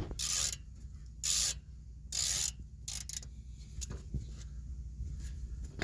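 Ratchet wrench clicking in three short runs of back-strokes, then a few lighter clicks, as a brake caliper bolt is turned loose.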